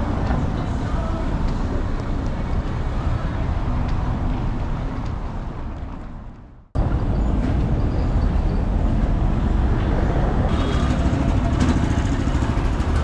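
City street traffic noise, a steady rumble of passing vehicles. About six and a half seconds in it fades out and then starts again suddenly.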